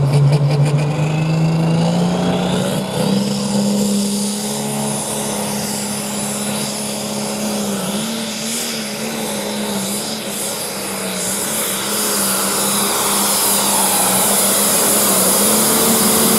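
John Deere-bodied pulling tractor's engine run at full throttle hauling the pulling sled. The engine climbs in pitch over the first few seconds, with a whine rising alongside it, then holds a steady high pitch. It grows louder near the end as the tractor draws close.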